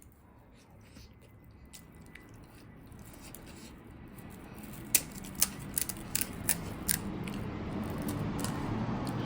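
Crisp pani puri shells cracking: a quick run of about seven sharp crunches midway, over a low background noise that grows slowly louder.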